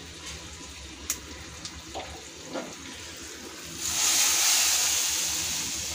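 Hot-oil tempering of small onions and curry leaves poured into a pot of sambar: a sudden loud sizzle about four seconds in that slowly fades. Before it, a few light clicks.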